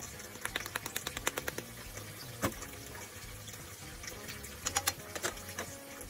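Miso broth simmering in a frying pan, with a quick run of light taps from the curry powder tin about half a second in, then a few clinks of chopsticks and a ladle against the pan as the soup is stirred.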